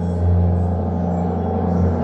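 Deep, steady ambient drone: a strong low hum under layered sustained tones, like an electronic soundscape or ambient music.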